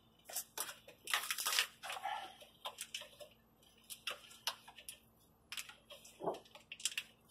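Battery cables and corrugated plastic wiring loom being handled and pulled at the battery terminals: a run of irregular sharp clicks and rustles, densest about a second in.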